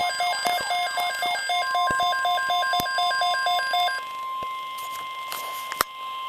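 Weather radio alert: a rapid pulsing electronic beep, about six pulses a second, over which the steady NOAA Weather Radio warning alarm tone comes in about a second and a half in. The beeping stops about two-thirds of the way through, leaving the single steady tone, with a sharp click near the end.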